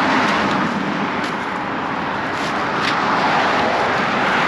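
Road traffic going by: a steady wash of tyre and engine noise from passing cars.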